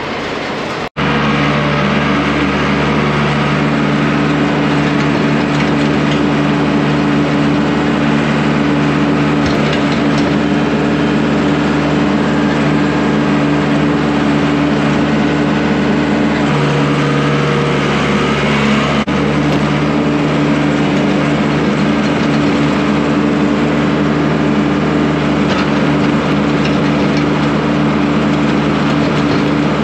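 Engine running steadily under load, driving a Kuhn Knight TMR feed mixer wagon as canola is weighed into it: a constant mechanical hum with a steady low drone.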